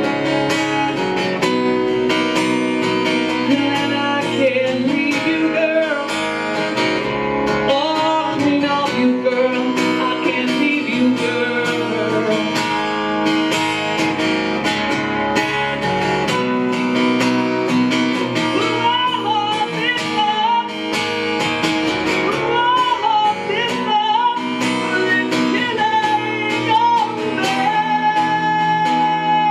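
Acoustic guitar strummed in a rock song while a man sings over it, belting hard near the end.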